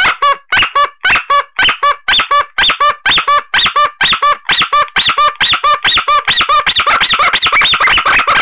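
Old Teenage Mutant Ninja Turtles toy bike horn honked over and over in quick short blasts. The honks come faster toward the end.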